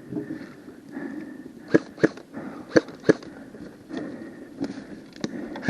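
Airsoft guns firing single shots as sharp cracks: four loud ones spaced unevenly in the middle, then several fainter ones near the end.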